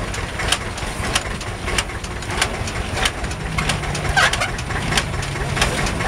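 Old farm machinery running, with a regular knock about one and a half times a second over a low hum. A brief wavering higher sound comes about four seconds in.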